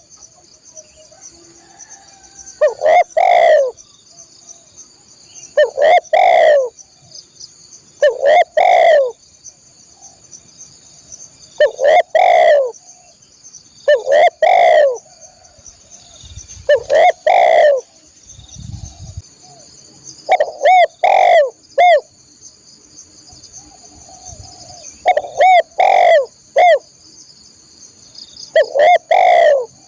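Tekukur dove cooing loudly, repeating a short coo phrase about every two to three seconds.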